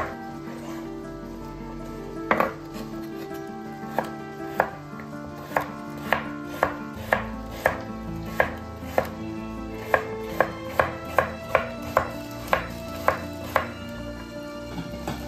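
Kitchen knife chopping carrot into cubes on a bamboo cutting board: sharp knocks of the blade striking the board, a few spaced ones at first, then a steady run of about two a second that stops near the end.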